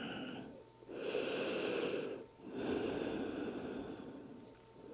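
A person breathing slowly and audibly: the end of one breath, then two long breaths of about one and two seconds, with short pauses between them.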